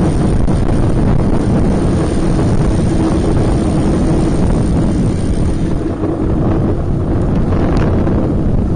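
Wind rumbling over the microphone of a camera riding on a moving road bike, loud and steady, with a faint steady hum underneath.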